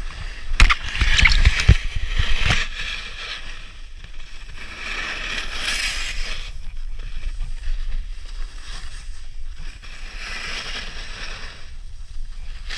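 Snowboard sliding down packed snow, its edge scraping in swells as the rider turns. Several sharp knocks come in the first few seconds.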